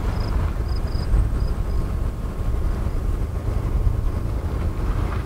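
Steady low rumble of a pickup truck driving slowly on a paved road while towing nothing but a brine sprayer in its bed, heard from the truck bed with road and wind noise on the microphone.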